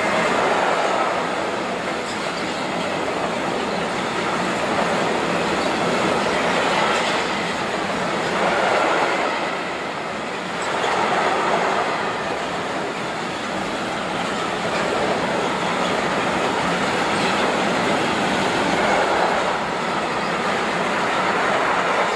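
Long freight train of bulk hopper wagons rolling past close by: a steady rumble and rattle of wheels on the rails, swelling and easing every few seconds as groups of wagons go by.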